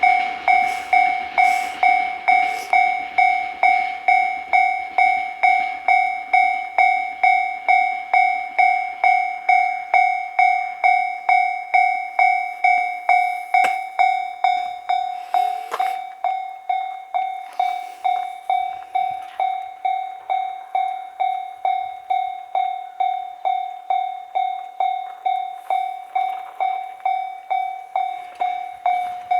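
Japanese level-crossing warning bell ringing steadily, a bright electronic ding about twice a second. The rumble of a passing train dies away over the first few seconds.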